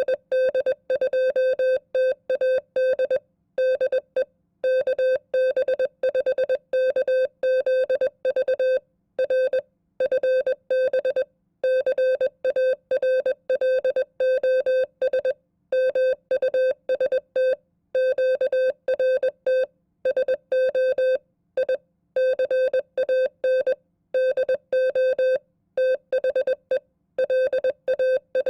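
Morse code at 20 words per minute: a single steady electronic tone keyed on and off in dots and dashes, with short gaps between characters and longer gaps between words, sending a sample amateur radio contact (QSO) as a code-copying test. It starts abruptly out of silence.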